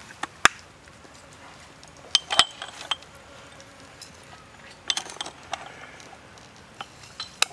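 A plastic spoon clicking and clinking against small ceramic cups and a plastic bowl while seasonings are scooped out, in scattered sharp taps: a loud one about half a second in, a cluster around two seconds, more around five seconds and one near the end.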